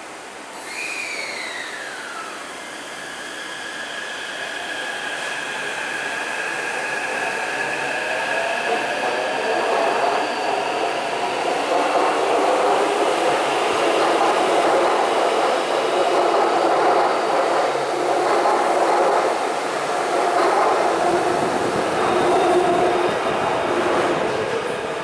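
Taipei Metro C381 subway train pulling out of the station. A short falling tone about a second in is followed by the traction motor whine rising in pitch as the train speeds up. Then the wheels and cars rumble loudly past, easing off near the end as the train enters the tunnel.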